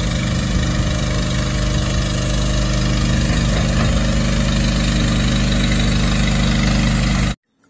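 Mitsubishi Fuso water tanker truck's diesel engine running steadily as the truck creeps along, with the rush of water spraying from its front nozzles onto the road. The sound cuts off suddenly near the end.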